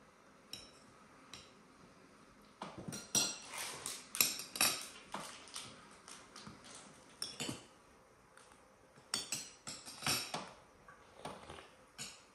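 Forks clinking and scraping on china plates as people eat, in irregular light taps that come thickest a few seconds in and again near ten seconds.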